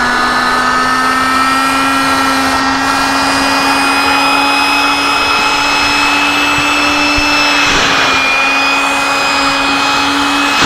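Small battery-powered electric air pump running steadily as it inflates an air sleeping pad, a constant motor whine whose pitch creeps slightly upward.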